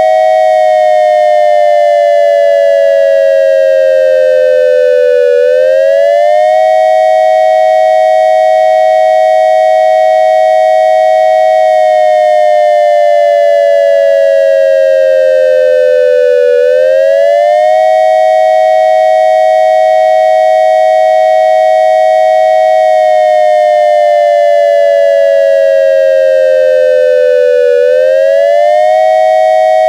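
Synthesized dual-tone electronic siren made from triangle waves, imitating an ASC digital siren controller sounding the attack signal. Two tones, one low and one high, hold steady, slide down together over several seconds, then sweep quickly back up, three times over.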